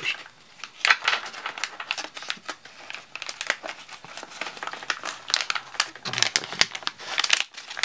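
A foil-lined resealable plastic pouch crinkling and crackling in the hands as a stack of cards is slid back into it.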